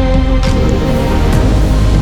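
Background music: sustained chords over deep bass, with swelling sweeps about every second.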